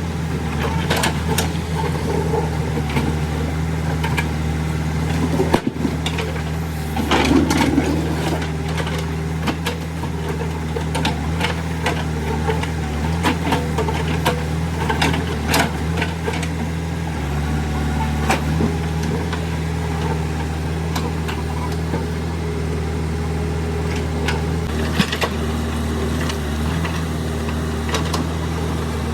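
Diesel engine of heavy farm or earthmoving machinery running steadily, with scattered short clanks and knocks over it. The engine note shifts slightly about two-thirds of the way through.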